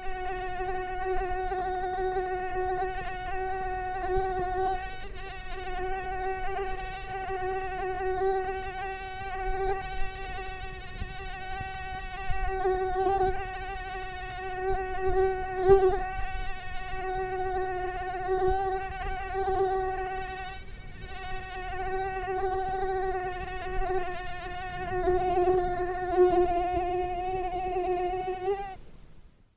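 Mosquito buzzing in flight: a steady, high whine that wavers slightly in pitch and swells and fades in loudness, as if passing close by the ear. It stops abruptly near the end.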